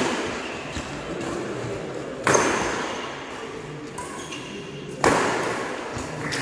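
Badminton rally: sharp cracks of rackets striking the shuttlecock, echoing in a large hall. The loudest hits come about two seconds and about five seconds in, with lighter strokes between.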